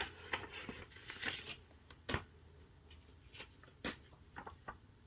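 Handling noises: soft rustling with scattered light clicks and taps, the sharpest about two seconds in and near four seconds.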